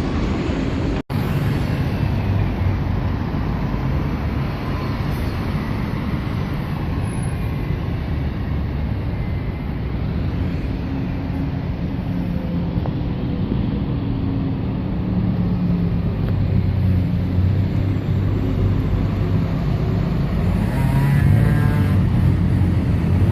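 London buses and road traffic passing on a busy street, engines running steadily. The sound cuts out for an instant about a second in, and an engine note wavers and grows louder near the end as a vehicle pulls through.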